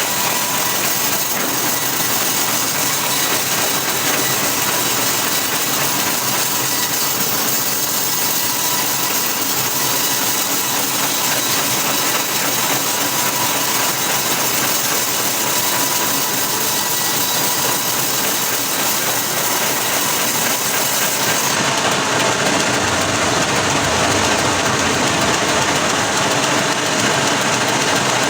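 An engine-driven machine running steadily, with an abrupt change in its sound about three-quarters of the way through.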